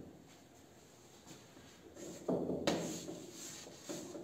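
Chalk scraping and tapping on a blackboard as letters are written, starting about two seconds in after a quiet stretch.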